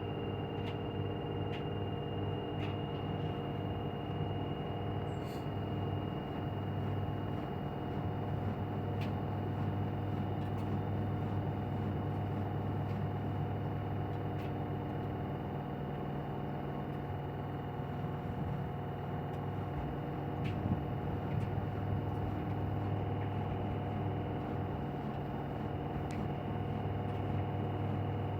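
LG washing machine in its spin cycle on the cotton programme set to 1200 rpm: a steady hum with a constant whine over it and a few faint clicks.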